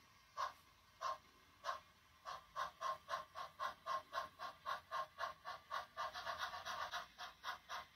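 Sound-equipped HO scale model steam locomotive chuffing as it pulls away with its train, the exhaust beats speeding up from under two a second to about four a second as it gains speed.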